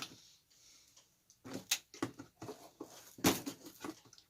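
Scissors cutting the ties and straps that hold a toy truck in its box, along with rustling and clicking of the packaging. There are sharper snaps about a second and a half in and again just after three seconds.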